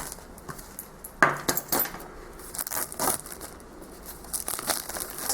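Boxed tarot decks and packaging being handled: a sharp knock about a second in, then scattered lighter clicks and rustles.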